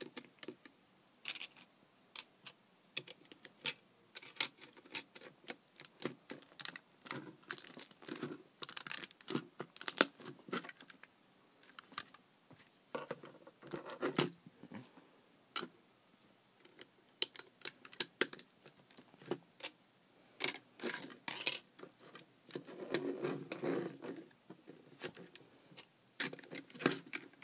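Plastic Lego bricks clicking and rattling irregularly as a Lego-built hidden blade with a comb blade and key ring is handled and fitted back together, with a few denser bursts of rattling.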